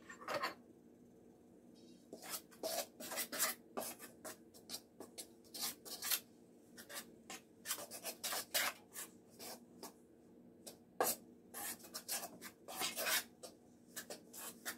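A utensil scraping and stirring through stiff pastry dumpling dough in a stainless steel mixing bowl, in quick irregular strokes, as broth is mixed into the flour and shortening.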